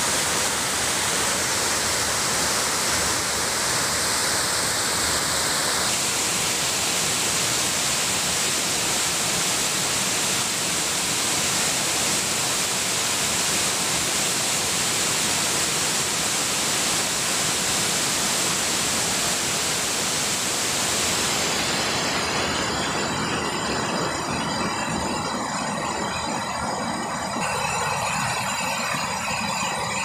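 Waterfall: water rushing and splashing down over stepped rock, a loud steady noise. About two-thirds of the way through the high hiss drops away and the sound thins.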